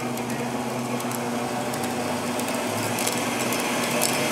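Home-built 2x72 belt grinder's electric motor and belt spinning up slowly after a hand-cranked start, with a steady hum that grows gradually louder as it comes up to speed.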